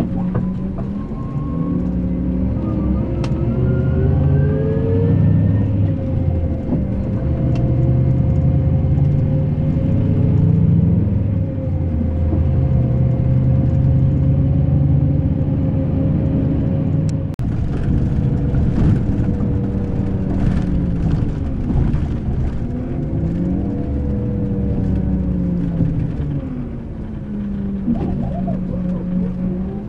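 Diesel engine of a Scania K380 coach running at low speed, its note falling and rising several times as the bus manoeuvres. A patch of rattling clicks joins in about halfway through.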